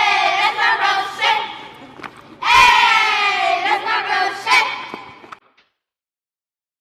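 A crowd of voices shouting together in two long, drawn-out shouts, each falling in pitch, the second starting about two and a half seconds in. The sound cuts off suddenly a little after five seconds in.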